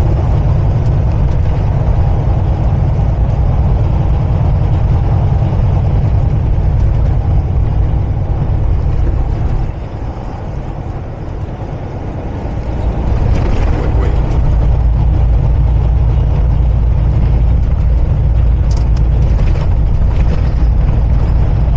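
Semi-truck engine and road rumble heard from inside the cab while driving, a steady low drone that drops for a couple of seconds about halfway through and then builds back up.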